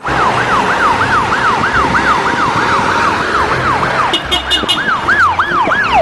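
Ambulance siren yelping, its pitch sweeping up and down about three times a second as the ambulances drive off. About four seconds in, a short run of higher beeps joins briefly.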